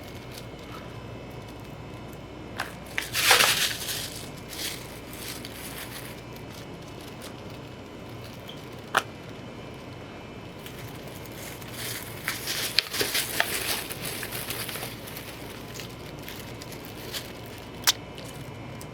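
Scattered crunching and crinkling over low room tone, loudest in a burst about three seconds in and a longer stretch from about twelve to fifteen seconds, with a couple of sharp clicks.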